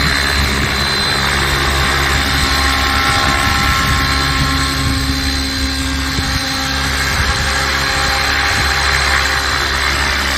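600-size scale RC helicopter running steadily in flight, its rotor and drive giving a constant throb with a thin high whine over it.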